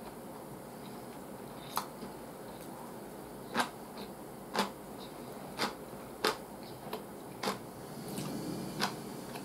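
Close-up eating sounds of a person chewing ramen noodles: a run of sharp, irregular mouth clicks and smacks, about seven in nine seconds, over a steady low hiss.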